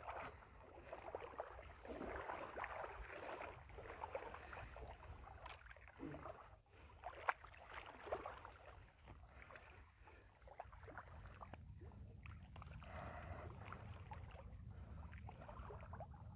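Faint sloshing of water stirred by people wading and handling a fishing net, with a couple of small splashes about seven and eight seconds in.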